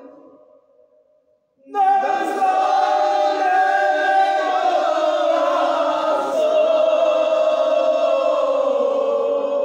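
A group of men singing a religious chant together in unison. They start after a short pause about two seconds in and hold long notes.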